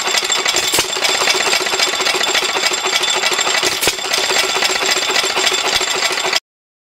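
Antique Buzacott 2 hp open-crank, horizontal-cylinder hit-and-miss engine running: a fast, steady mechanical clatter with two louder bangs about three seconds apart. It cuts off suddenly near the end.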